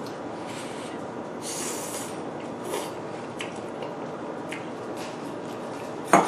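Eating sounds from a bowl of ramen noodles: a short slurp about a second and a half in, scattered small mouth clicks and smacks, and one sharp clack near the end, the loudest sound. A steady background hiss runs underneath.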